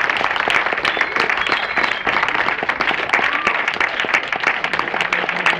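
Audience applauding: a dense, steady run of hand claps, with a faint voice or two calling out.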